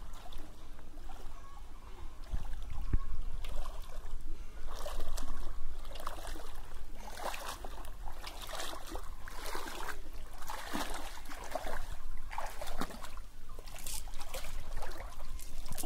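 Pond water sloshing and splashing in irregular swishes as a person wades through it.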